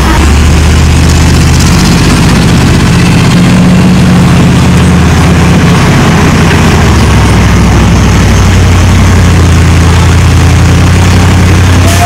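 Heavy diesel engine of an earthmoving machine running loud and steady.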